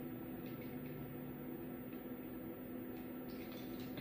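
Steady low hum of background room noise with one constant low tone and no distinct events.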